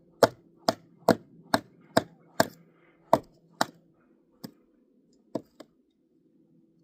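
Kindling being chopped: a rapid run of sharp strikes on wood, roughly two to three a second, slowing to a few scattered blows and stopping a little past halfway.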